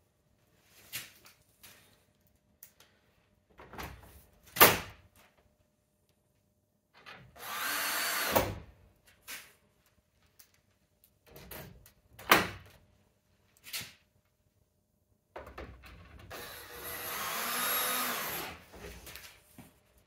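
Cordless drill driver driving screws to fix a multipoint lock strip into a UPVC door: two runs of the motor, about a second long near the middle and about three seconds long near the end. Between them come scattered knocks and clicks, the loudest a sharp knock about four and a half seconds in.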